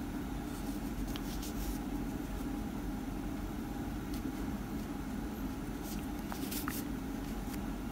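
A steady low background hum, with a few faint soft ticks and rustles from hands drawing a yarn needle and yarn through a crocheted sole.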